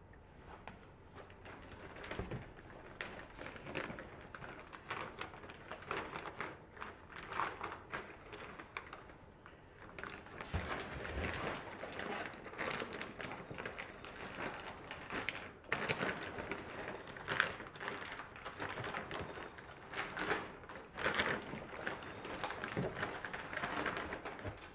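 Clear plastic wrapping crinkling and rustling as a boxed radio receiver is handled and lifted out of its cardboard box, with a few soft thumps.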